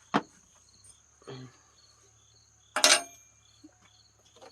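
Crickets chirping steadily in the background. A sharp metallic click comes just after the start and a louder clatter about three seconds in, from hand tools and loosened parts during work on the airbox bolts.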